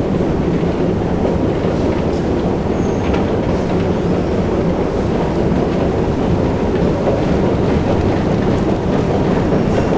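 Long metro escalator running, a steady loud mechanical rumble from its steps and drive.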